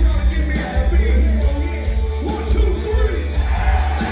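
Loud live band music with a heavy bass beat, drums and a voice singing over it.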